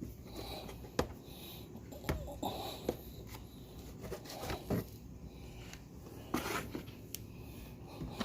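Scattered light clicks, taps and rustling of an air filter being handled and set into a plastic airbox.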